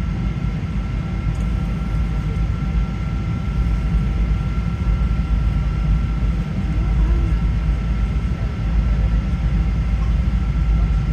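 Steady low rumble of a British Airways Boeing 777-200 during departure, with a few faint, steady whining tones above the rumble.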